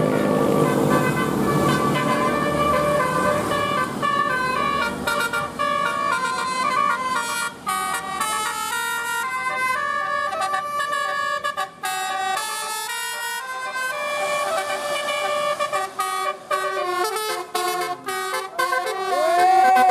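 Bus 'telolet' horn: a bank of tuned air horns playing a quick melody of stepping notes over a running bus engine, ending with a siren-like tone that swoops up and then slides down near the end.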